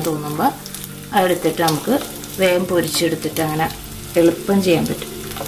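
Prawns sizzling in hot oil in a non-stick wok, stirred with a wooden spatula, under background music with a melody that is louder than the frying.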